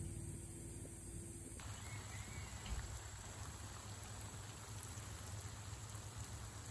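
Overhead sprinklers spraying, a steady hiss of water pattering onto leafy cuttings in the trays, which starts abruptly about a second and a half in.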